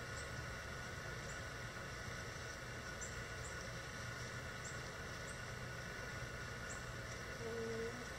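Backyard chicken-run ambience: a steady low rumble with faint short high chirps every half second or so, and a brief low hen call about seven and a half seconds in.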